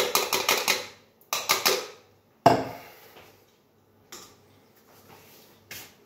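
Mixed berries being poured into a plastic blender cup, landing as a quick run of clicks in the first second and a shorter run just after. A single sharp knock comes about two and a half seconds in, followed by a few faint taps.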